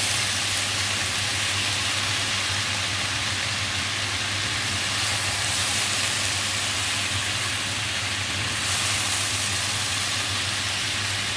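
Sliced potatoes, mushrooms and onion sizzling steadily in hot oil in a frying pan as they are turned with a plastic spatula, over a steady low hum.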